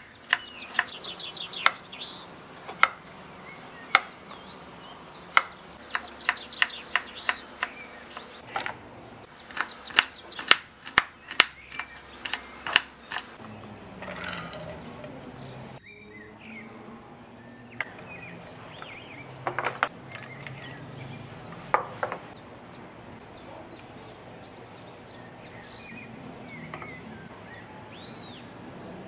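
Kitchen knife chopping carrot into strips on a wooden cutting board, a run of sharp, irregular knocks for the first dozen seconds, with birds chirping in the background. The chopping then stops, and only a few soft knocks and rustles come as chopped vegetables and grated coconut are tipped from a container into a ceramic bowl.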